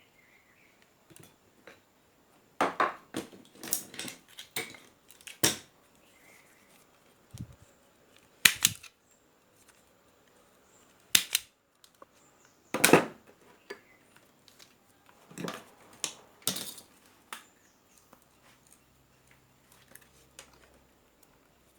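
Sharp clicks and clacks of tools and parts being handled on a workbench, in irregular bursts with short gaps between.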